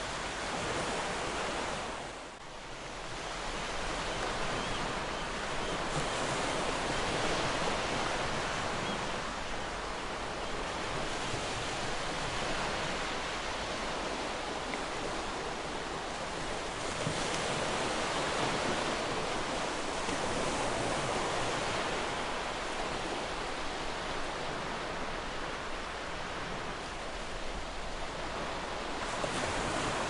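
Ocean waves washing gently on a shore: a continuous rush of surf that swells and eases, with a brief lull about two seconds in.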